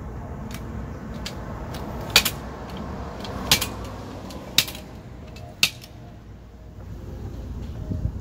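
Aluminium telescopic ladder being collapsed: its sections slide down and clack shut one after another, four sharp metallic clacks about a second apart with fainter clicks between.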